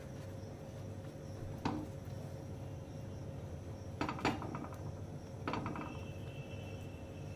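A metal spoon clinks against a flat griddle pan while spreading sauce on bread slices, each clink ringing briefly: once about a second and a half in, twice close together around four seconds, and once more a second later. A steady low hum runs underneath.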